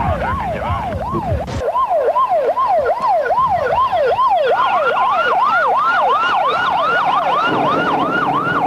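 Electronic sirens yelping, their pitch rising and falling about three times a second; a second, higher-pitched siren joins about halfway through.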